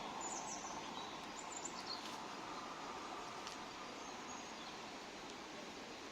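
Outdoor ambience: a steady background rumble of noise that slowly fades, with a few brief, faint high bird chirps in the first two seconds and once more around four seconds in.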